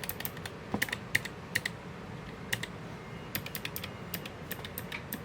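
Keychron K7's low-profile blue switches clicking as single keys are pressed at an irregular pace, a dozen or so sharp clicks, some in quick runs.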